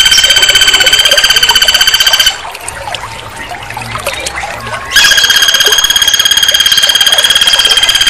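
A loud, very rapid trill held at one steady high pitch. It cuts out suddenly a little over two seconds in and comes back just as suddenly about five seconds in.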